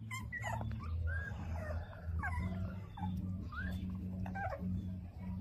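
Young puppies whimpering in short, high squeaks, about eight times, while one suckles from a milk bottle. A low steady hum runs underneath.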